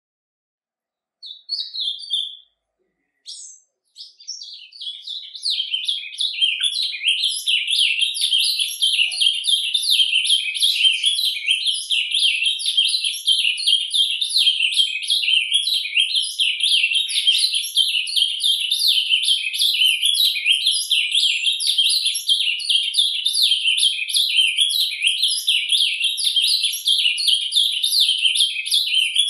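Ultramarine grosbeak (azulão) singing its surdina, the continuous soft-style warbling song: a few short notes about a second and a half in, then from about four seconds an unbroken stream of rapid, high twittering chirps.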